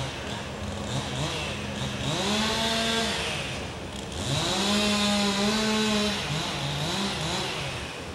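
A small engine revving up twice, about two seconds in and again about four and a half seconds in, each time holding a high pitch for a second or two before falling back to a lower run.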